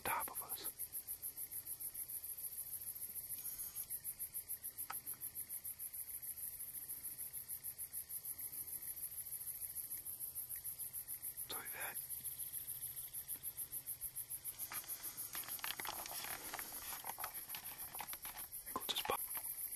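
Insects trilling steadily: a very high, rapid, pulsing chirr that never stops. A few brief soft sounds break in about twelve seconds in and again near the end.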